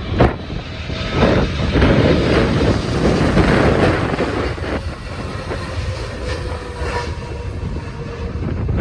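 Jet airliner engine noise, loudest from about a second in to the middle, then easing, with wind buffeting the microphone.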